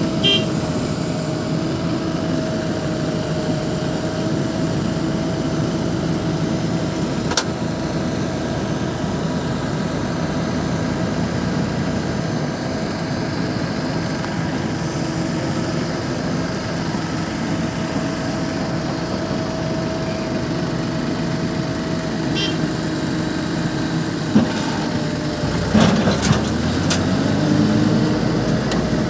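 Diesel engines of an excavator and a farm tractor running steadily, with a light whine. About three-quarters of the way through, an engine revs up in a rising note.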